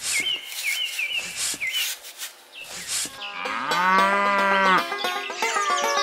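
A small trowel scraping and digging in damp sand, a few strokes, then a cow mooing once for about a second and a half; music comes in near the end.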